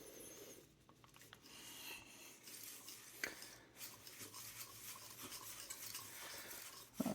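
Faint rubbing and a few light clicks of a Corona 4 typewriter ribbon spool being turned by hand to wind the ribbon on.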